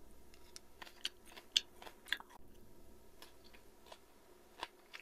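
Close-miked chewing of boiled bok choy (cải) with chopsticks: irregular crisp crunches as the stems are bitten and chewed.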